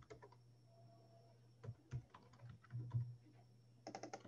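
Faint computer keyboard typing: irregular single keystrokes, a few heavier taps, and a quick run of keys near the end.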